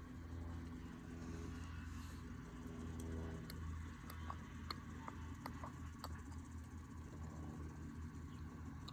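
A steady low engine-like hum, with a scattering of light, sharp clicks a few seconds in.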